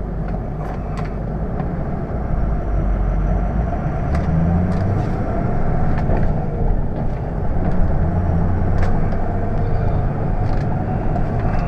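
Ford 6.0-litre Power Stroke V8 turbo diesel running under load as the truck drives off, heard from inside the cab. Its steady low rumble gets a little louder about two seconds in.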